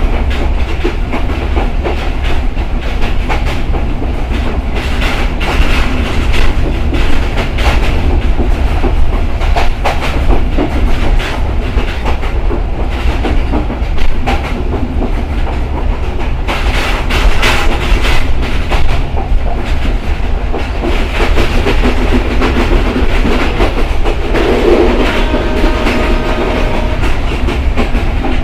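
Simanta Express passenger train running along the track, its wheels clattering over the rails with a steady clickety-clack and a rumble. A faint steady tone joins for about two seconds near the end.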